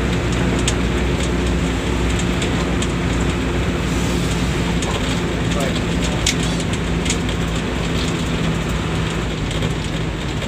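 Bus engine running steadily under road and tyre noise, with scattered small rattles.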